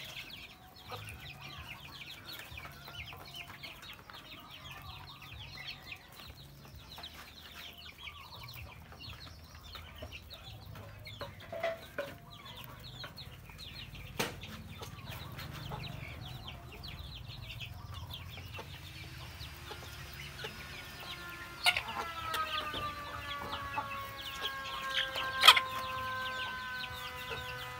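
Young chickens clucking and pecking at chopped greens in a tyre feeder, with quick soft ticks and chirps. About two-thirds of the way through, a steady droning tone with several pitches comes in, and there are two sharp knocks near the end.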